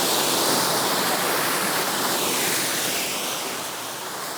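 Waterfall rushing steadily, the sound tapering down gradually over the second half.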